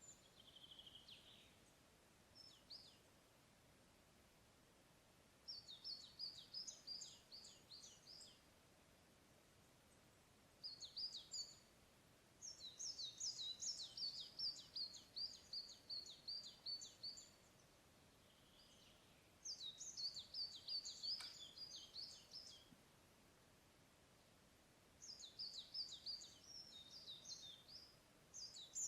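A songbird singing in repeated phrases of quick, high chirping notes, each phrase a few seconds long, with pauses of a few seconds between them. A faint steady hiss runs underneath.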